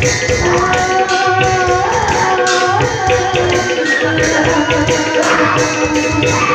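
Live Bhaona accompaniment music: a held melody that steps from note to note over a steady drone, with hand-drum strokes and small cymbals clashing in a regular beat.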